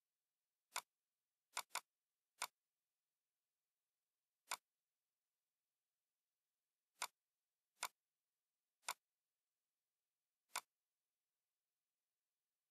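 Computer mouse clicks, about nine at uneven intervals with a quick double click near the start, over otherwise dead silence.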